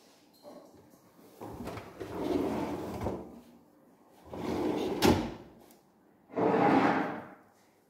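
Kitchen cabinet drawers sliding on their runners by hand, three slides of about a second each, one ending in a sharp click about five seconds in.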